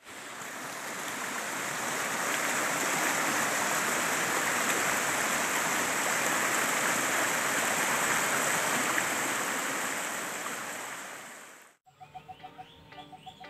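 Shallow stream rushing over flat rock slabs: a steady rush of water that swells in over the first couple of seconds, then cuts off abruptly near the end, where music begins.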